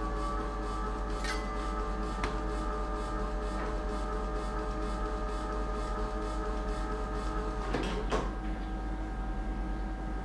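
Phacoemulsification machine sounding its aspiration tones as the irrigation/aspiration handpiece suctions viscoelastic from behind the implanted lens: several steady held pitches, one rising a little at the start, over a low hum. A few light clicks, and about eight seconds in a brief rasping sweep, after which most of the tones cut off.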